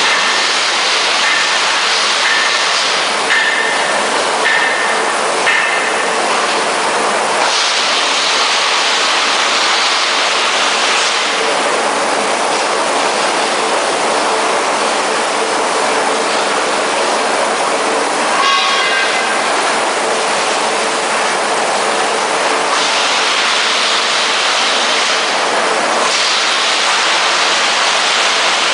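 Log debarker and wood chipper machinery running continuously, a loud steady mechanical noise with a constant hum. A few short high squeaks sound in the first six seconds, and a brief squeal comes a little past halfway.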